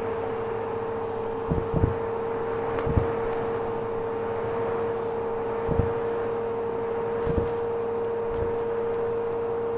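Vacuum cleaner running with a steady hum, its hose wand sucking crunchy bits and fluff off a carpet. A few short crunches and knocks come as pieces rattle up the wand, the loudest at about one and a half to two seconds in and again at three seconds.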